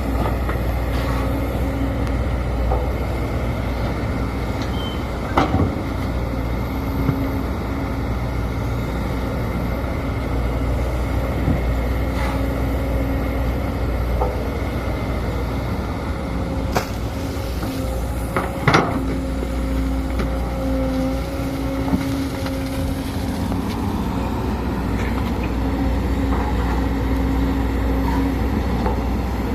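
Sumitomo SH210 excavator's diesel engine running steadily under work, with a humming tone that comes and goes. A few sharp metallic clanks stand out, one about five seconds in and a louder one past the middle.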